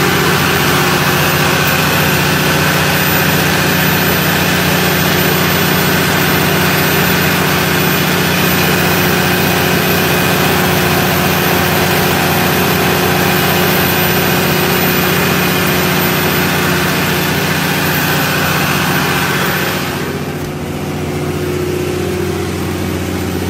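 Cummins 6CTA turbocharged inline-six diesel engine of a brand-new 200 kVA generator set, running steadily at constant speed, heard close up in the engine compartment. About twenty seconds in, the sound turns duller and a little quieter.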